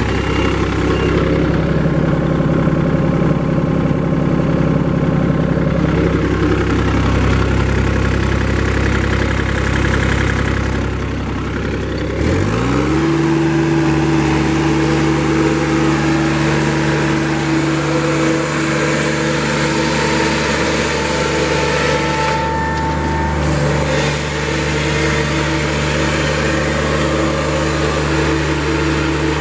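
Yanmar 3TNV84 three-cylinder diesel engine of a 2004 John Deere 3225C mower running steadily at low speed, then throttled up about twelve seconds in, its pitch rising within a second to a steady higher speed that it holds.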